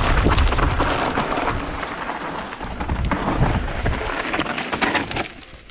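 Wind rumbling on a moving camera's microphone as a mountain bike runs fast down a rough dirt trail, with the clatter of tyres and bike over the ground. It eases off near the end.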